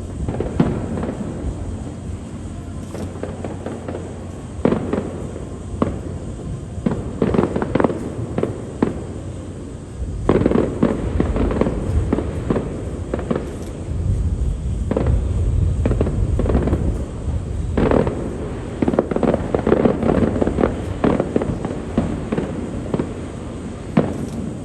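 Aerial fireworks display: shells bursting in quick succession throughout, with dense crackling volleys and a deep rolling rumble that swells about ten seconds in and again a few seconds later, picked up on a phone's microphone.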